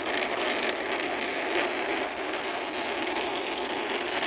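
Plastic wheels of a toy bus rolling steadily as it is pushed along by hand.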